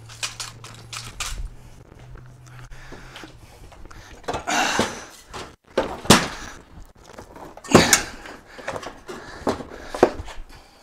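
Clanks, knocks and scraping from handling a dismantled Kenmore washing machine's steel frame and long transmission shaft. A scraping rattle comes about four and a half seconds in, and two sharp knocks, the loudest, come about six and eight seconds in.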